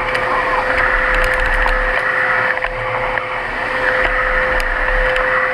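Miele Capricorn upright vacuum cleaner running, a steady high motor whine over the rush of air.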